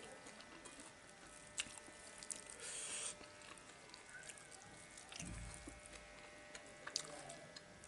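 Fingers mixing rice and food in a metal bowl: faint squishing with a few soft clicks, and a low thump about five seconds in.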